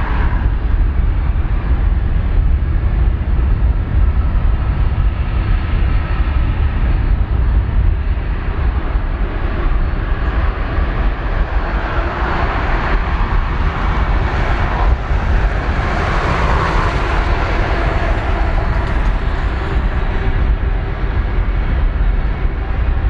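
Jet airliner engines running at an airport: a steady loud noise that swells for a few seconds about halfway through.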